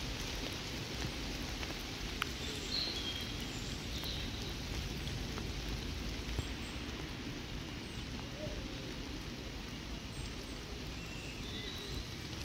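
Steady rain falling on a rainwater puddle and the wet path around it.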